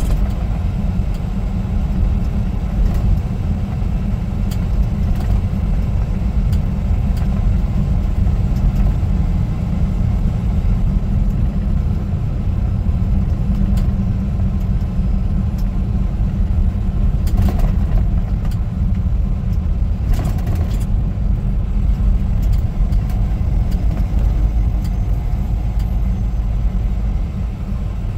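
Semi truck driving down the road: a steady low rumble of engine and road noise. Two brief noises come about two-thirds of the way through.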